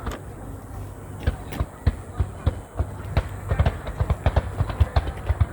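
Fireworks going off: a few scattered bangs at first, then a dense, rapid run of many bangs from about three and a half seconds in.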